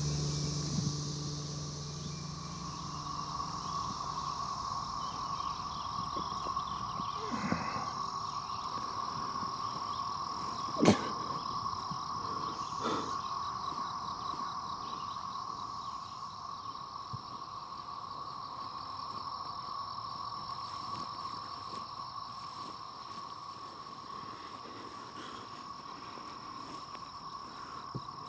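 Steady chorus of insects chirring, with a single sharp click about eleven seconds in and a couple of fainter knocks around it.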